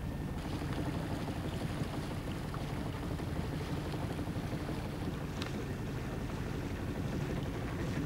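Motor cruiser's engine running steadily with a low hum, under a hiss of water and wind.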